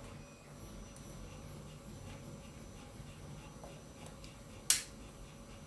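3D printers running, a steady low hum with faint regular ticking. A single sharp click comes about three-quarters of the way through.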